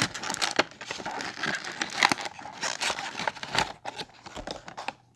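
Toy packaging crinkling and crackling as it is handled and opened, with many quick snaps and rustles; the handling is busy for about three and a half seconds, then thins out to occasional crinkles.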